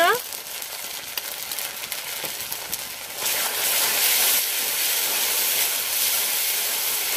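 Ground spice paste and turmeric sizzling in hot mustard oil in an iron karahi, stirred with a metal spatula. The sizzle is faint at first, then grows louder and denser about three seconds in as the paste is stirred through the oil.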